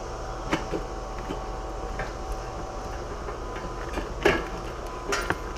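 Short knocks and clunks as a battery tray is worked into place in a Jeep engine bay, the loudest about four seconds in, over a steady background hum.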